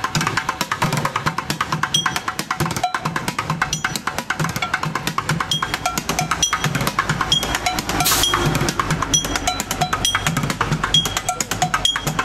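Background music with fast, busy drumming over a steady beat.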